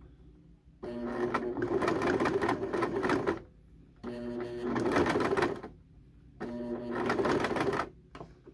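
Electric household sewing machine stitching through cotton rope, running in three short bursts with brief stops between them as the rope coil is turned.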